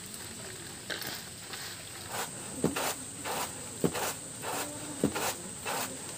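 Grain being winnowed on a woven bamboo tray: from about two seconds in, a rhythmic run of short swishes about twice a second as the grain is tossed, with a sharper tap of the tray every second or so.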